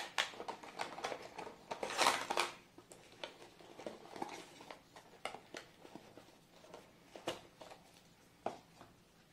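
A clear plastic packaging tray and a small cardboard box being handled and closed: scattered clicks, taps and rustles, with a louder crinkling rustle about two seconds in.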